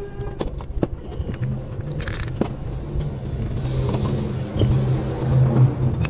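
Clicks and clinks of metal starter-motor parts being picked up, handled and set down on a workbench during reassembly, with a short scraping rattle about two seconds in, over a steady low hum.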